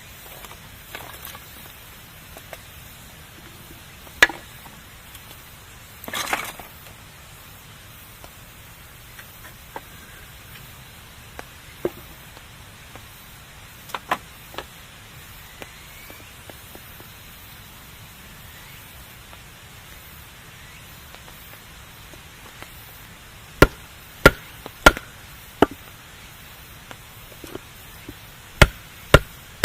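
Wood campfire crackling over a low steady hiss, with scattered sharp pops. Near the end comes a run of louder pops in quick succession.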